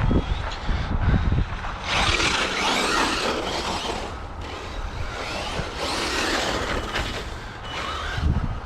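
An RC monster truck's brushless electric motor running as the truck drives through snow, with its tyres churning. There are a few low thumps in the first second and a half, then a long stretch of rushing noise.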